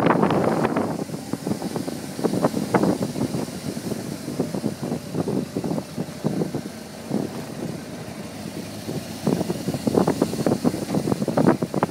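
Car driving along a road, heard from inside the car: engine and road noise with an uneven, gusty rumble, loudest in the first second and rising again near the end.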